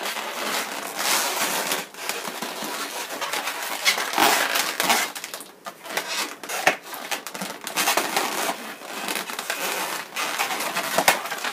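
Latex modelling balloons rubbing and crackling against each other and against fingers as they are twisted and tied, in irregular bursts.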